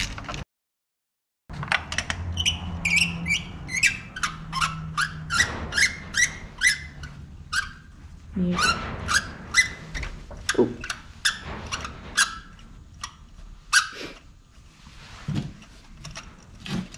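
Ratchet wrench fitted with a 16 mm magnetic spark plug socket, clicking in quick runs of sharp clicks as a spark plug is loosened. The clicking starts about a second and a half in and thins out near the end.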